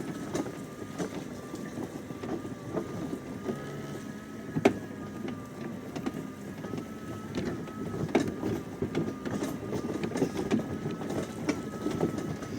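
Greenworks 60-volt battery-powered riding mower driving along at a moderate speed, its electric drive giving a steady high whine over a constant rattle from the mower and towed wagon on rough ground. There are a few sharp knocks, the loudest a little under five seconds in.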